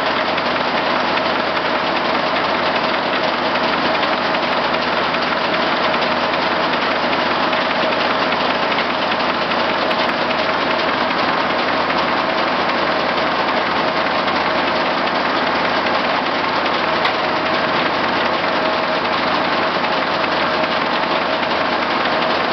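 Case six-cylinder power unit running at a steady speed, with a steady hum over it.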